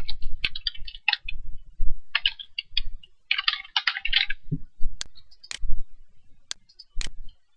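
Computer keyboard typing in quick runs of keystrokes for about four seconds, then a few separate sharp clicks as the mouse clicks a button.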